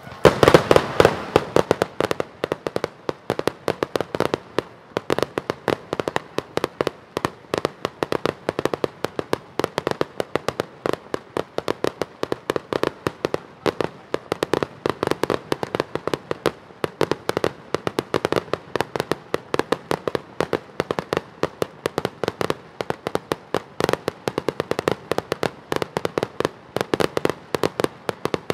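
Fireworks going off in a rapid, unbroken barrage of bangs and crackling reports, many a second. The barrage starts suddenly with its loudest bursts in the first couple of seconds, then carries on evenly.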